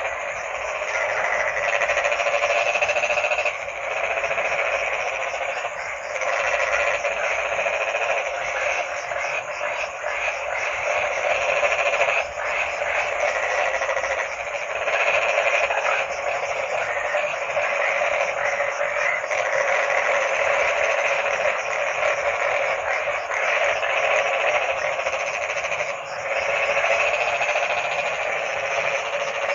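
Dense chorus of many frogs calling at once, a continuous din that swells and dips slightly.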